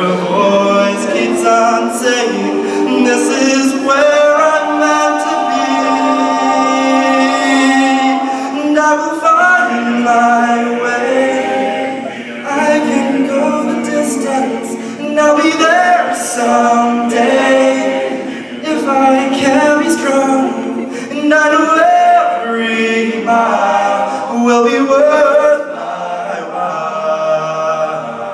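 All-male a cappella group singing unaccompanied, several voices in close harmony moving through held chords.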